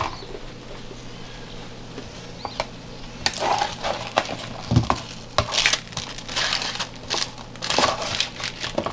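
A black slotted spatula scraping under and turning roasted cauliflower and potato pieces on a parchment-lined metal sheet pan, flipping them halfway through roasting. The parchment crinkles and the spatula knocks lightly on the pan in a run of short strokes starting about three seconds in.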